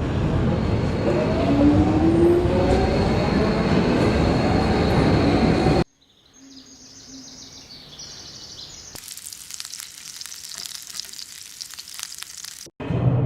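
Ambient sound recordings cut together one after another. First comes loud rumbling noise with a rising tone for about six seconds. It cuts abruptly to a much quieter ambience with faint high-pitched tones. From about nine seconds a dense crackling hiss plays, and it stops suddenly near the end.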